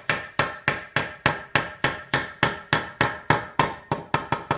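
A hammer tapping new bushings into an ATV A-arm: a steady run of sharp taps, about three a second, each with a short ring, quickening near the end.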